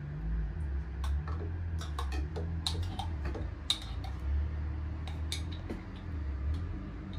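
A metal spoon clicking and scraping against a plastic container and a bowl while thick momo chutney is spooned out, a string of irregular small ticks over a low steady hum.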